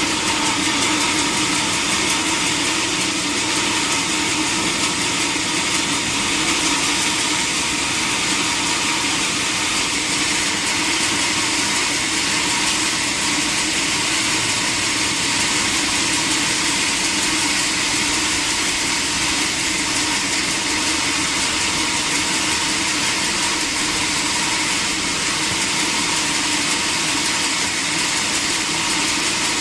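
Sawmill machinery running steadily with an even engine-like drone and no clear changes or strikes.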